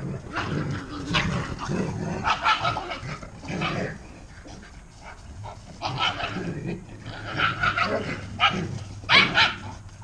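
Small dog barking in a series of short, irregular outbursts, loudest near the end.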